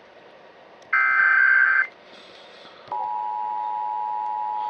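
Emergency Alert System test over the radio: one burst of the SAME header's data tones, about a second long, then about three seconds in the steady two-tone EAS attention signal starts.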